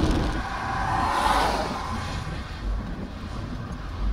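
A vehicle passing on the road, its tyre hiss swelling and fading about a second in, over a low steady rumble.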